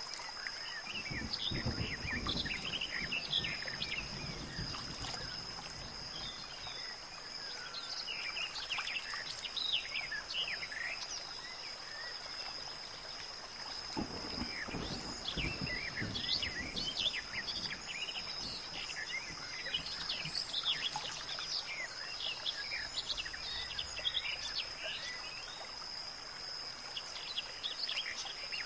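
Outdoor nature ambience: many short bird chirps over a steady high insect drone, with a low rumble about a second in and again about halfway through.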